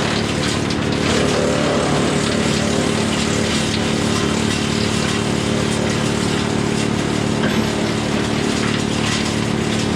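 Woodmaxx WM8 PTO wood chipper running steadily, driven by a John Deere 4066R tractor's diesel engine at a constant speed.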